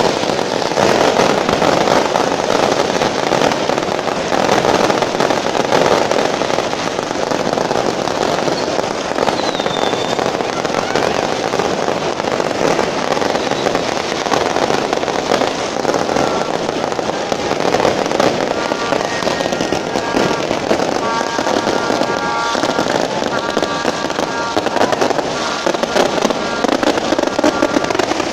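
Fireworks going off in a long, unbroken barrage: dense rapid crackling and popping mixed with bangs, with no let-up.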